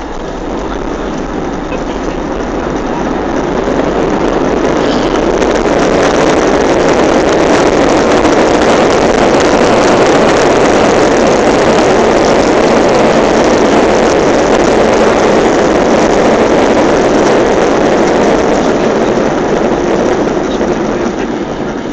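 Airbus A320's jet engines in reverse thrust after touchdown, heard from inside the cabin: a loud, even roar that builds over the first few seconds, holds steady, then dies away near the end as the aircraft slows on the runway.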